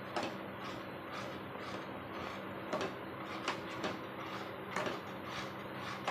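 Metal ladle stirring thick urad dal kali dough in a metal pan: a wet scraping with several short knocks of the ladle against the pan, over a steady low hum.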